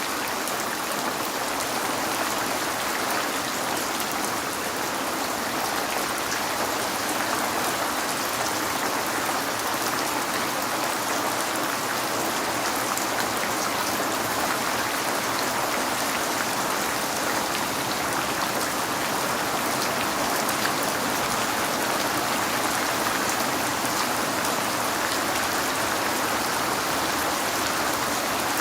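Steady rain falling on a window, an even hiss with scattered sharp drop ticks.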